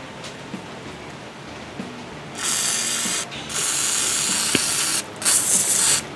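Aerosol spray can hissing in three bursts, the middle one the longest.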